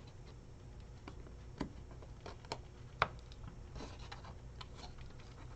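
Light clicks and knocks of thin pre-cut wooden pieces being handled and pushed together, a tab being fitted into a slot, with one sharper click about three seconds in.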